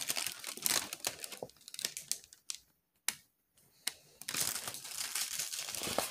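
Plastic film crinkling as a diamond painting canvas and its wrapping are handled. The crinkling stops for about two seconds in the middle, broken by one sharp click, then starts again.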